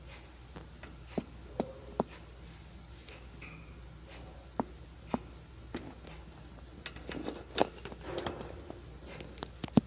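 Scattered sharp clicks and taps with soft scuffling, and one short faint chirp about three and a half seconds in: small parrots moving about, with little calling.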